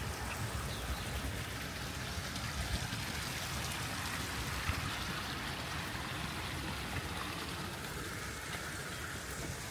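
Steady outdoor background noise: an even hiss with a low rumble underneath and a few faint ticks.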